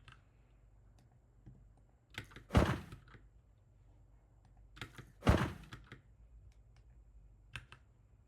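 Sound effects of a hand slamming into raw meat and sliding across it, played twice about two and a half seconds apart: each a dull thud followed by a short scraping swish. Faint clicks come in between.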